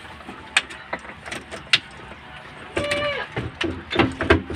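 Hand tools clicking and clinking against metal engine parts in irregular sharp taps, with a brief voice sound about three seconds in.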